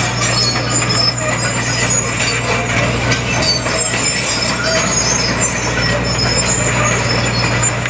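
Sumitomo SH210 hydraulic excavator's diesel engine running steadily under load with a constant low hum as the machine lifts a clump of bamboo in its bucket, with scattered short high squeaks over it.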